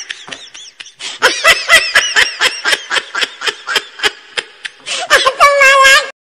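High-pitched laughter, a quick run of 'ha-ha' bursts at about four or five a second, ending in a longer drawn-out laugh that cuts off suddenly.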